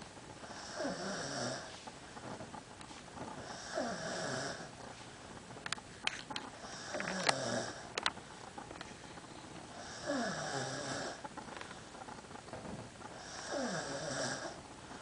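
A man snoring in his sleep: five snores about three seconds apart, each sliding down in pitch. A few sharp clicks come around the middle.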